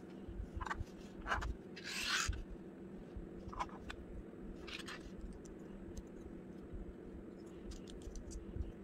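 Small plastic Lego bricks and plates being handled and fitted together: light clicks and short scraping rubs of plastic on plastic, the longest about two seconds in and a few faint ticks near the end, over a faint steady hum.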